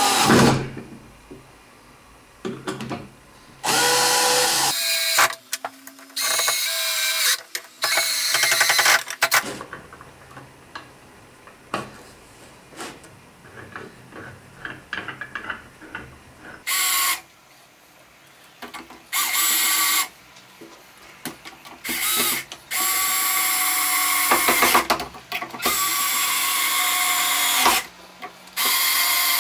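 Cordless drill running in a series of short bursts of about one to two seconds each, stopping and starting repeatedly. Light knocks and clicks are heard in the pauses between runs.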